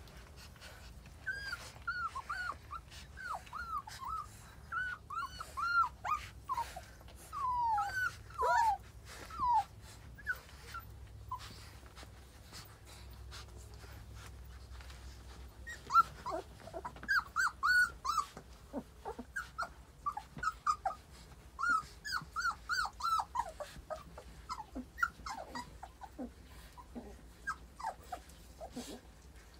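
Nursing puppies squeaking and whimpering: many short, high, falling squeaks in quick runs, in two spells with a pause of a few seconds in the middle, over soft clicks.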